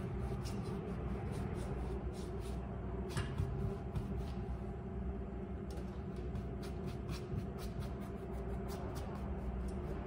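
Paintbrush strokes of acrylic paint on a stretched canvas: faint repeated brushing and scraping over a steady low hum.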